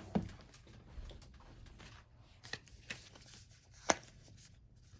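A small cardboard tuck box of game cards being handled and worked open: light rustling and a few scattered taps, the sharpest about four seconds in.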